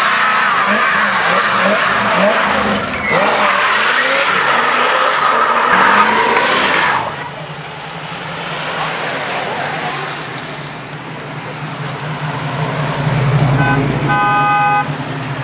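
A car doing a burnout: its tyres squeal while the engine revs hard, until the squeal stops about seven seconds in. Then car engines rumble steadily as cars drive slowly past, and a short steady tone sounds near the end.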